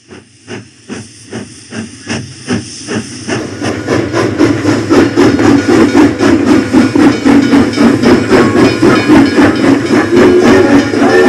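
Coal-fired miniature steam locomotive pulling away and coming closer. Its exhaust chuffs start slow and faint, then speed up and grow loud over a steady hiss of steam. Near the end a steam whistle begins to sound.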